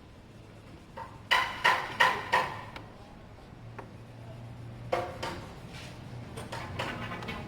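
Four sharp, ringing knocks of a hard object about a third of a second apart, followed a few seconds later by lighter clattering and taps.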